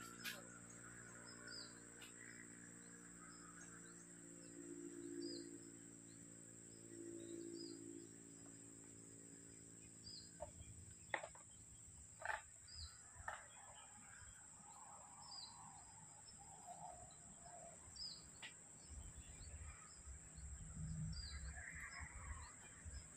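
Faint outdoor ambience: a steady high-pitched insect drone, with short high chirps repeating about every two seconds. A few sharp knocks come near the middle, and a faint low hum fades out during the first half.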